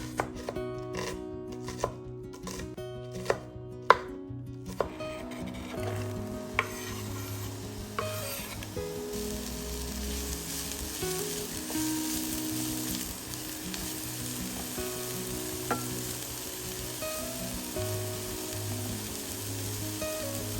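A knife chopping on a cutting board, sharp chops about once a second for the first five seconds. Then food frying in hot oil, a steady sizzle, over soft background music.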